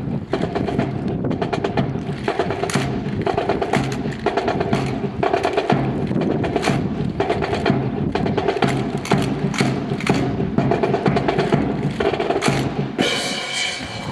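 Marching percussion section playing a fast, dense drum rhythm with sharp wood-block-like clicks, accompanying a rifle drill.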